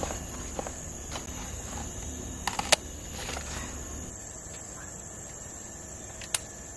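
Crickets chirring steadily in a constant high-pitched drone, with a quick cluster of sharp clicks about two and a half seconds in and one more click near the end.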